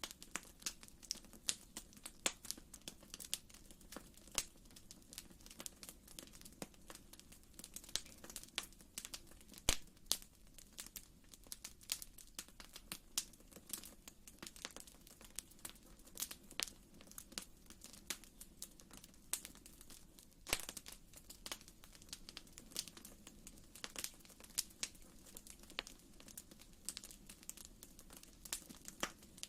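Wood fire in a fireplace crackling, with irregular sharp pops and snaps over a faint low steady rumble.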